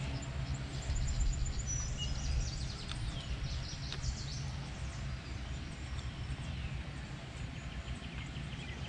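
Steady low outdoor rumble, with birds chirping and whistling faintly over it, most busily in the first few seconds.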